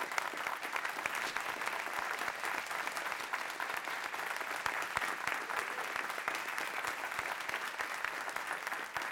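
A small audience applauding, many hands clapping steadily.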